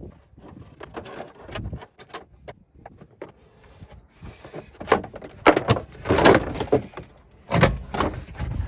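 Irregular knocks, clicks and rustling from hands handling car parts, loudest in a cluster of sharp knocks in the second half.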